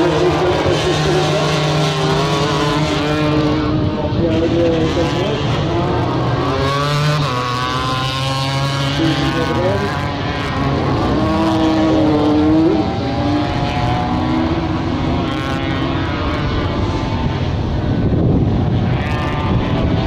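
Several 250cc crosskart engines racing around a circuit, their pitch rising and falling as they accelerate, lift off and shift gears, with more than one engine heard at once.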